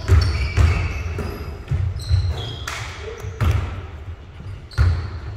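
Basketball bouncing on a hardwood court, a string of low thuds every half second to second and a half, with short high squeaks in between.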